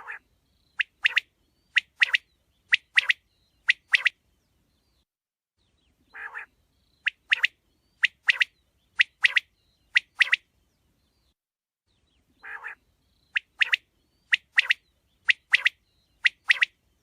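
Quail calling in three repeated phrases. Each phrase is a soft, lower opening note followed by four sharp double notes about a second apart, and there is silence between the phrases.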